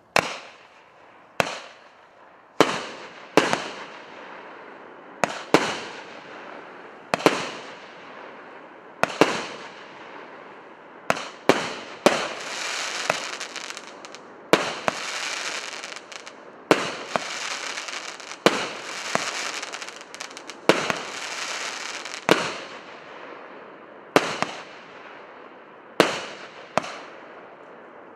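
A 19-shot, 1.2-inch consumer fireworks cake (Russkaya Pirotekhnika 'Kremlevskie kuranty') firing shot after shot: sharp reports about one to two seconds apart, each followed by a fading hiss, with the shots coming closest together in the middle.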